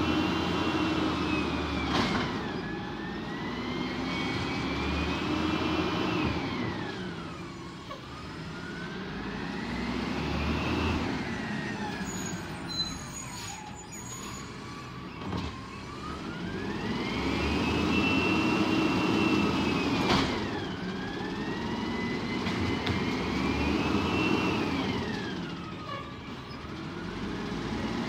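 Peterbilt 320 garbage truck with an Amrep automated side-loader, its engine and hydraulic whine rising and falling again and again as it throttles up to work the lifting arm at each cart. A few sharp clanks sound over it.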